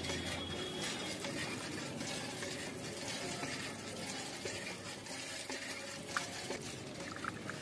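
Thin stream of water trickling from a miniature model hand pump as its handle is worked by hand, with a few faint clicks near the end.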